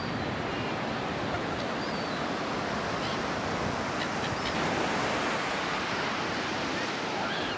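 Surf washing on a beach, a steady rush of noise with some wind, and a few faint short high calls from gulls.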